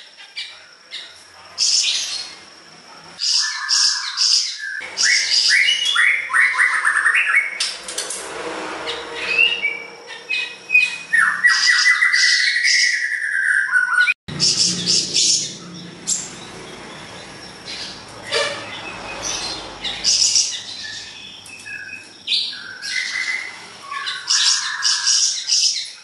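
A caged siri-siri songbird singing at full voice: a string of loud chirps and harsh notes, with quick runs of repeated notes in two stretches.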